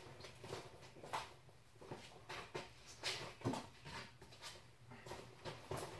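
Faint, scattered knocks, clicks and rustling of hand tools being rummaged through while someone looks for a pair of side cutters.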